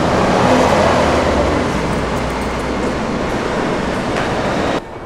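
Loud, steady rumble of vehicle and transit noise, which drops sharply near the end.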